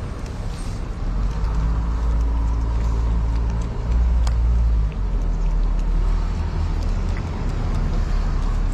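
Low, steady engine rumble of a motor vehicle running close by. It grows louder about a second in and peaks around the middle, with a few faint clicks over it.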